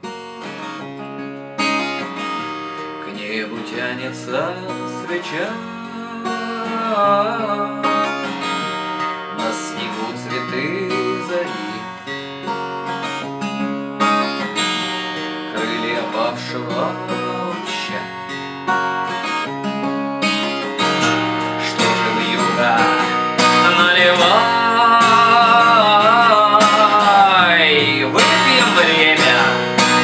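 Steel-string cutaway acoustic guitar (a Crafter) playing the Em, C, G and D chords in a pattern of picked bass and treble notes followed by a quick down-up strum, with a man singing along. It gets louder about two-thirds of the way through.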